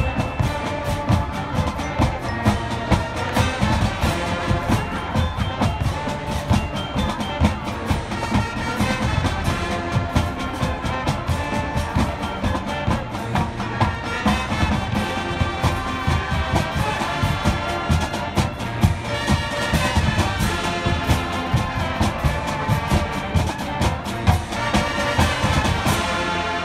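Marching band playing live: brass over a steady drum beat, closing on a held chord near the end.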